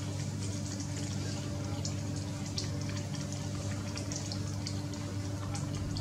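Steady low hum, with scattered faint high clicks throughout.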